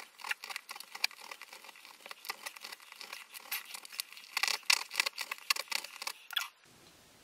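A serrated knife saws through the plastic barrel of a highlighter pen to cut its end off. It makes a quick, uneven run of scratchy clicks and scrapes that stops about six and a half seconds in.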